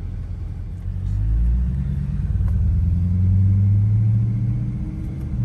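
The 2017 Dodge Durango R/T's 5.7-litre HEMI V8 running, revved up about a second in and held at raised revs, easing off a little near the end.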